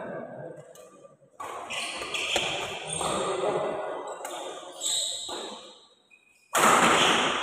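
Sounds of a doubles badminton rally in a sports hall: racket strikes on the shuttlecock and the players' shoes on the court. A loud burst of noise comes near the end.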